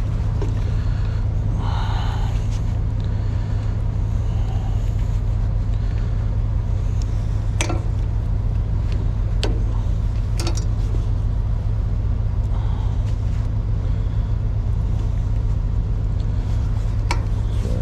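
Engine idling steadily, a constant low hum, with a few short sharp clicks from hand work about eight, nine and a half, ten and a half and seventeen seconds in.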